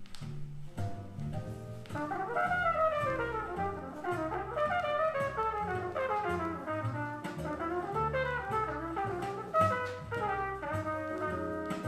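Small-group jazz played from a vinyl LP on a turntable: a muted-tone trumpet plays quick phrases that run up and down in pitch over a walking double bass and drums with cymbal ticks.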